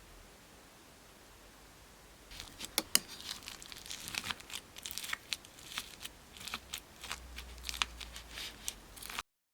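Slime being squished and pulled by hand, giving a run of sharp, irregular crackles and pops that starts about two seconds in and cuts off just before the end.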